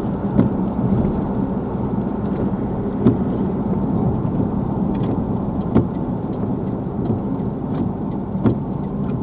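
Car running at low speed with steady engine and tyre rumble heard from inside the cabin, with a few light knocks.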